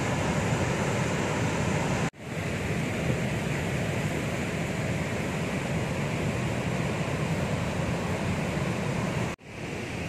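Steady rush of waterfall water pouring through a narrow rock gorge, cut off briefly twice, about two seconds in and near the end.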